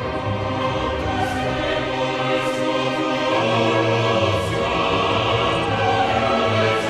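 Background music: a choir singing over an orchestra, in a classical style.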